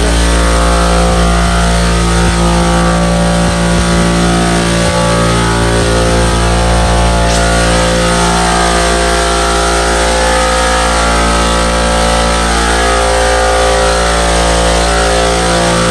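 Air compressor running steadily, a loud constant motor drone with a low hum.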